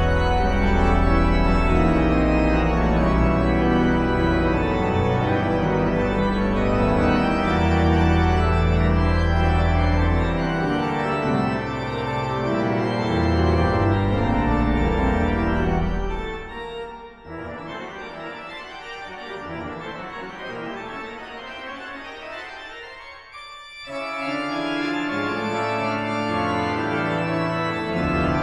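Pipe organ playing loud sustained chords over deep pedal bass notes. About sixteen seconds in it drops to a quieter, thinner passage without the bass, then returns to full organ with pedal near the end.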